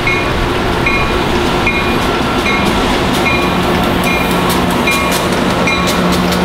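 Amtrak AEM-7 electric locomotive and its passenger cars arriving in pouring rain: a steady hiss of rain with a low hum from the train, and wheel clicks over the rail joints coming more often from about halfway through. A short high double tone repeats about once a second.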